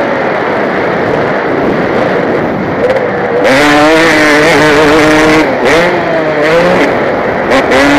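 KTM 250 motocross bike engine heard from the rider's helmet camera under racing throttle: eased off for about the first three seconds, then revved hard with a wavering, rising and falling pitch, dropping back briefly and picking up again near the end.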